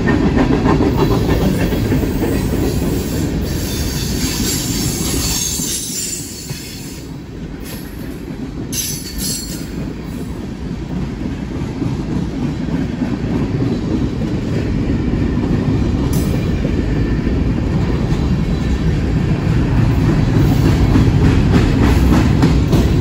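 Freight train cars, covered hoppers and tank cars, rolling past on their steel wheels: a steady rumble and rattle of wheels on the rail. It eases a little about six seconds in and grows louder again toward the end.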